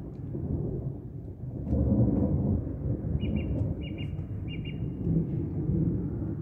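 Thunder from an approaching thunderstorm squall line rumbling low and continuously, swelling about two seconds in. A bird gives three short chirps in the middle.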